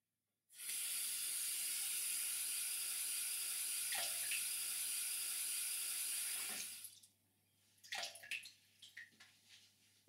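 A tap running into a sink for about six seconds, then shut off, followed by a few small knocks and clicks.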